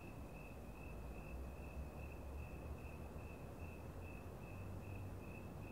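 A cricket chirping steadily: a high pulsing note repeated about two to three times a second, over a low rumble.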